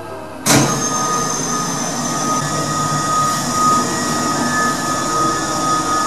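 Gartec platform lift's drive starting with a click about half a second in, then running steadily with a thin whine as the platform travels under the held call button.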